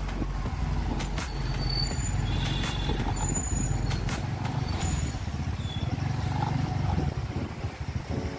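TVS Ntorq 125 scooter's single-cylinder engine running at low speed with tyre and road noise as it rolls slowly over paving; the lowest part of the hum drops away about four seconds in as it slows. A few short high-pitched squeaks and clicks come in the first half.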